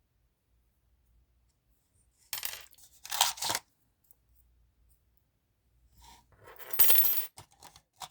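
Small metal parts clinking and rattling as they are handled, in two short bouts, the second louder, near the middle and near the end.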